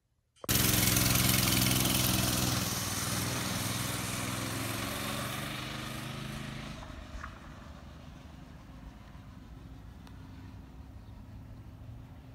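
A mini bike's Predator 212cc single-cylinder four-stroke engine running. It starts suddenly about half a second in, is loud at first, and fades over about six seconds to a faint steady run.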